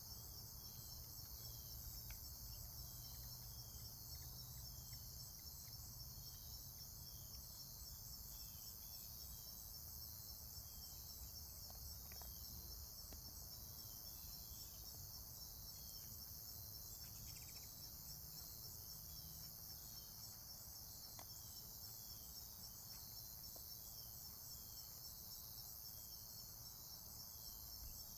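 Faint, steady outdoor chorus of insects, a dense high trilling that runs on without a break, with small short chirps repeating about once a second beneath it.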